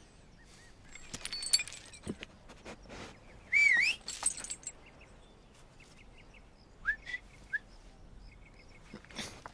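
Short high-pitched animal calls: a loud one about three and a half seconds in that dips and rises in pitch, and a few brief rising chirps about seven seconds in, over scattered clicks and rustling.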